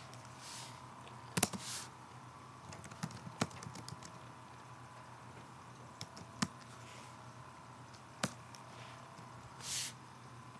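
Computer keyboard keystrokes and clicks: a short run of typing about three seconds in and single clicks scattered through the rest, over a faint steady electrical hum. Twice there is a short soft hiss.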